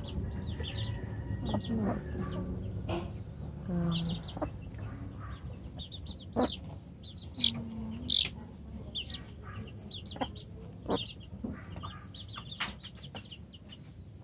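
Rhode Island Red hens clucking softly at a feeder, with a few sharp taps of beaks pecking at it, over a steady stream of high, rapid chirps.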